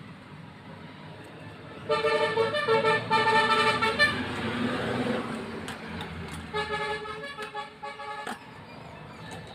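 A road vehicle's horn honking in a run of short blasts for about two seconds, then again for nearly two seconds a few seconds later, over a low hum of passing traffic.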